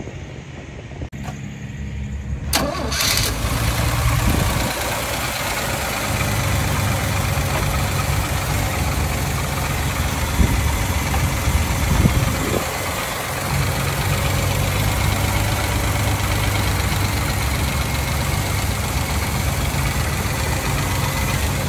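1979 Chevrolet C10's original 250 cubic-inch straight-six starting up about two and a half seconds in, then idling steadily.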